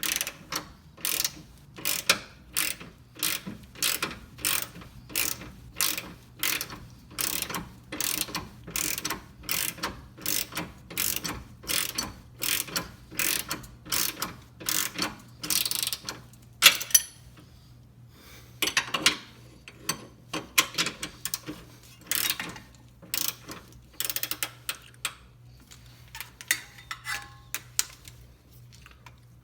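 Ratchet wrench clicking in a steady back-and-forth rhythm, about two strokes a second, as a bolt is worked loose; after about sixteen seconds the strokes become sparser and uneven.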